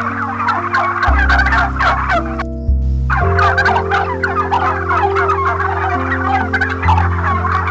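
A flock of birds calling rapidly and continuously, breaking off for about half a second some two and a half seconds in, over a backing of held low tones that shift in pitch every second or so.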